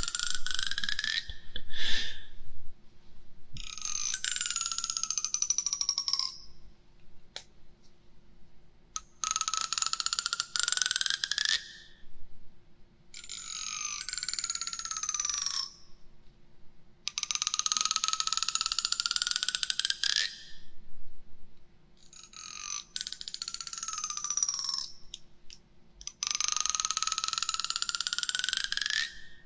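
A comb's teeth raked slowly across a binaural microphone in long strokes, about seven of them, each a buzzing rattle two to three seconds long whose pitch climbs or falls, the direction alternating from stroke to stroke.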